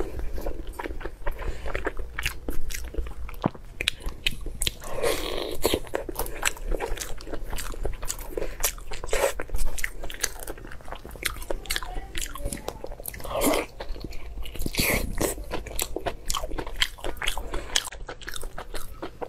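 A person eating close to the microphone: wet bites and chewing of stuffed squid with lettuce leaves, many sharp irregular clicks and smacks.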